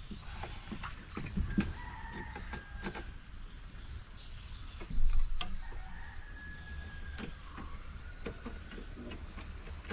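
A rooster crowing twice, each a long drawn-out call, the second falling away at its end. Scattered knocks and clatter of gear being handled in a boat, the loudest a thump about five seconds in.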